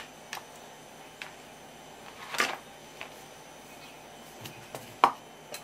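Hands working over a wooden cutting board: a few light taps and knocks, a short rubbing scrape about halfway through, and a sharper knock near the end.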